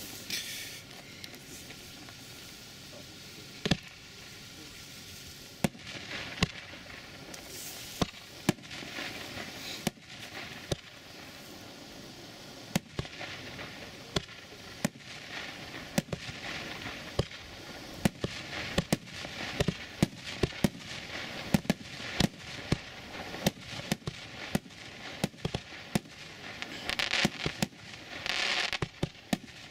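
A 36-shot, 63 mm firework cake (FC6336) firing: a string of sharp shots and aerial bursts with hissing and crackling between them. The shots are sparse at first and come thick and fast from about six seconds in, with a longer spell of crackling near the end.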